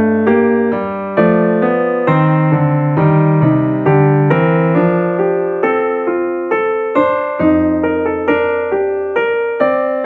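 Background piano music: a gentle keyboard melody over chords, notes struck a few times a second.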